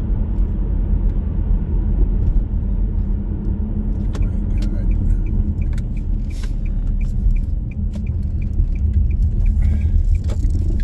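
Car engine and road rumble heard from inside the moving car, steady and low. In the second half a light, regular ticking comes in, about three ticks a second.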